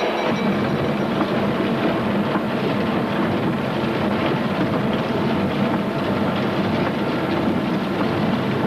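Loud, continuous mechanical rattling and clattering of coal-mine machinery underground, thick with small metallic knocks and no letting up.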